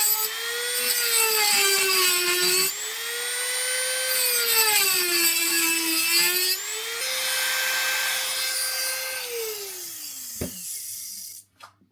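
Small electric power tool cutting into the reel's worn main plate. Its motor pitch rises and falls as it takes the load, then winds down and stops about ten and a half seconds in.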